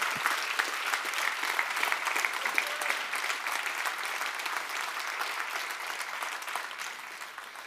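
Congregation applauding, a steady dense clapping that slowly dies away toward the end.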